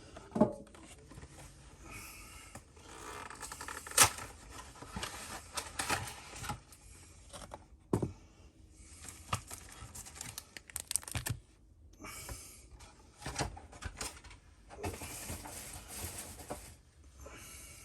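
Packaging of a trading card box being opened by hand: plastic and cardboard tearing, crinkling and rustling, with a few sharp clicks and taps, the loudest about four seconds in and again about eight seconds in.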